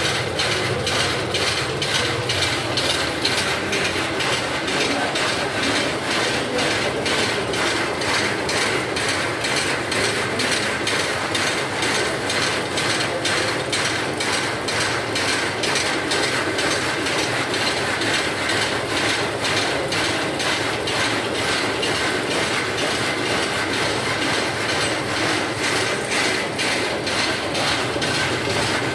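Power looms weaving, a steady fast clatter of the loom mechanism beating out each pick in an even rhythm.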